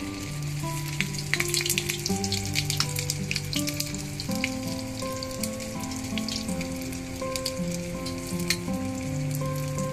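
Hot oil, at about 200 °C, sizzling and crackling as a breaded piece of food deep-fries in a small stainless steel sierra cup. The popping is thickest in the first few seconds. Background music plays throughout.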